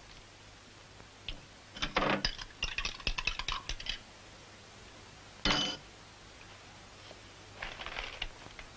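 Small hard objects clicking and rattling for about two seconds, then one sharp ringing clink about five and a half seconds in, and a few softer clicks near the end.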